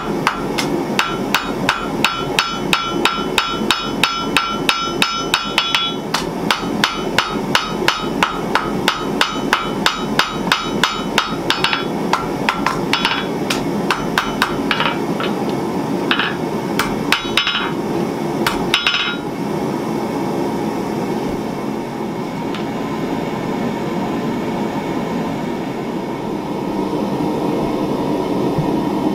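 Hand hammer striking hot spring steel on an anvil, about three blows a second with a bright metallic ring. The blows thin out past the middle and stop about two-thirds through. A steady rushing noise runs underneath and is left on its own at the end.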